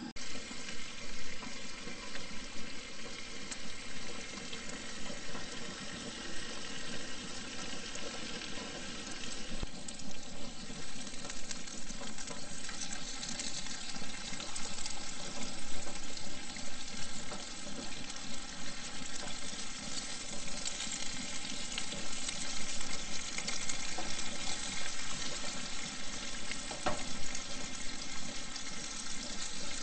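Bacon strips sizzling and spattering in a frying pan on a Coleman propane camp stove: a dense, steady crackle, with a few sharper clicks.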